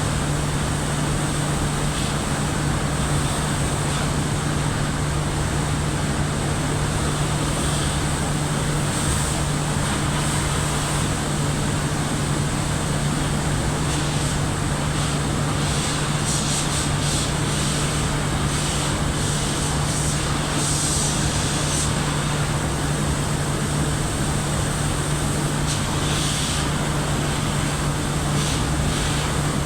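Steady roar of boiler plant machinery, a fan or burner, running with a constant low hum. Faint clinks and scrapes come and go above it, mostly in the middle and near the end.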